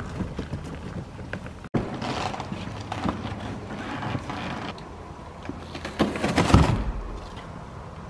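Hand truck rolling a large cardboard box over gravel, then cardboard rustling and scraping as the box is opened, loudest about six seconds in.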